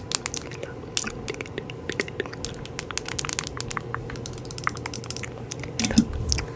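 Irregular rapid clicks and crackles close to the microphone over a faint steady hum, with a few low thumps near the end.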